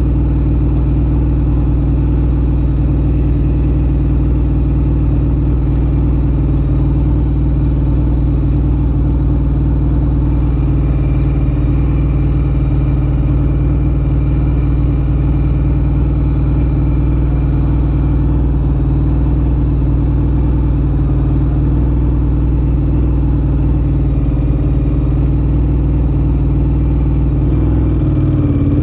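A 2013 Ducati Monster 1100 EVO's air-cooled L-twin running steadily through a Termignoni exhaust, holding an even pitch throughout.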